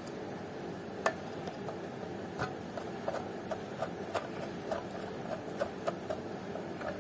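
A screwdriver turning a small screw out of an SWR meter's case, making a run of light clicks, about two to three a second.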